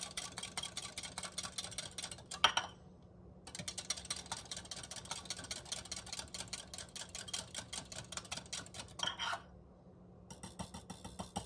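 Wire whisk beating eggs into buttermilk in a glass measuring cup: a fast, steady run of clicks as the wires strike the glass. It stops briefly twice, about three seconds in and near the end.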